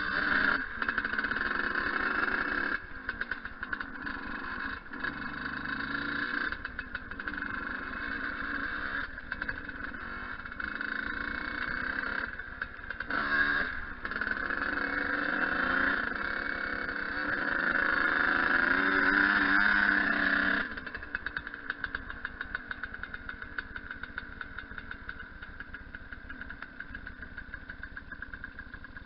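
Yamaha YZ125 two-stroke dirt bike engine running and revving up and down. About two-thirds of the way through it drops suddenly to a quieter, steady idle.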